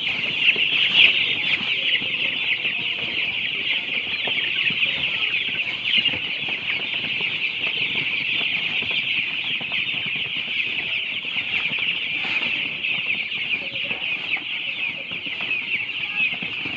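A flock of young broiler chicks peeping nonstop, many high overlapping peeps at once, with the faint brushing of a stick broom sweeping the litter underneath.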